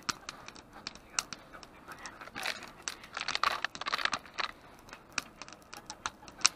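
Plastic wrapper of a convenience-store rice ball crinkling as it is handled and set down, loudest from about two and a half to four and a half seconds in. Sharp, irregular clicks and crackles run through it.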